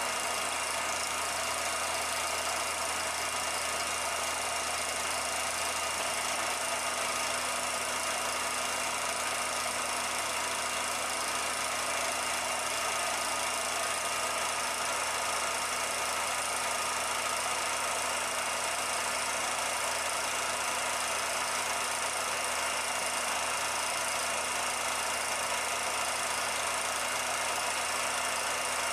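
Steady mechanical whirring and clatter with a constant hum, typical of a 16mm film projector running during the film's transfer.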